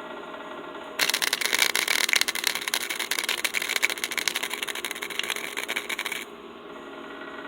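Welder laying a short bead on scrap steel: a crackling, sizzling burst that starts suddenly about a second in and stops abruptly about five seconds later, over a steady background hum.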